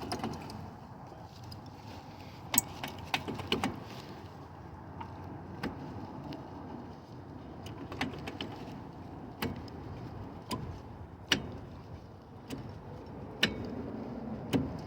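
Brake caliper of a 2004 Impala being wiggled by hand against its bracket and rotor: scattered sharp metallic clicks and knocks, about one every second or so, as it resists coming off.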